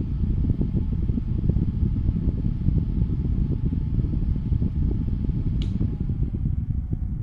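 JISULIFE portable desk fan running: a dense, fluttering low rumble of moving air with a faint steady hum from the motor and blades. There is one brief sharp click about five and a half seconds in.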